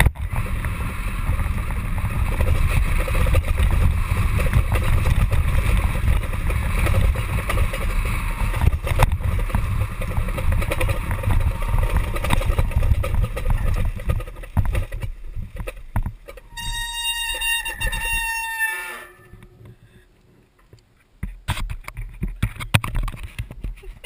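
Wind and tyre rumble of a bicycle-wheeled gravity derby car rolling fast down a paved road. Near the end a high, steady squeal lasts about two and a half seconds, dipping slightly in pitch, as the brakes bring the car to a stop. It then goes much quieter, with a few light knocks.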